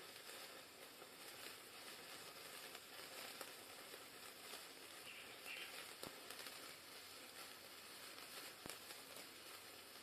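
Handheld sparkler burning with a faint, steady fizzing crackle of many tiny pops.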